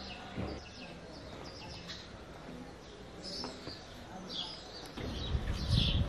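Small birds chirping repeatedly in short high calls over faint street background. Near the end a louder low rumbling noise comes in.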